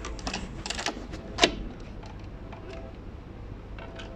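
Phillips screwdriver driving a screw into the plastic side cover of a MotorGuide Xi5 trolling motor head, with handling of the cover: a run of small clicks and knocks, the sharpest about a second and a half in, then quieter.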